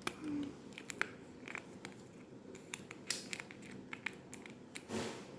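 Sticky tape and paper being handled: light crinkling and rustling with scattered small clicks, and a longer rasp near the end.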